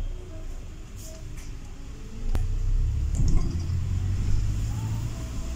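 London double-decker bus running on a wet road, heard from inside the upper deck: a steady low rumble of engine and tyres that grows louder about three seconds in. A single sharp click a little after two seconds in.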